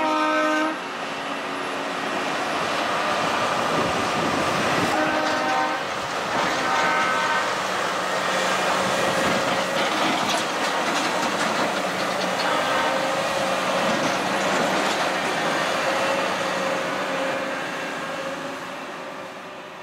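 Ballast regulator rolling past on the rails with its engine running and its wheels clicking over the track joints and crossings. Short horn blasts sound right at the start, twice more around five and seven seconds in, and faintly once later; the sound fades near the end as the machine moves away.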